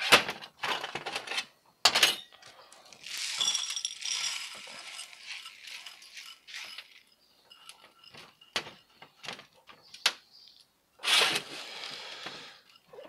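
Granular bonsai substrate rattling and clinking as it is poured from a plastic colander into a plastic bonsai pot, with knocks of the pot and colander being handled. A few sharp knocks come first, a longer rattle of grains follows, and another rush of pouring comes near the end.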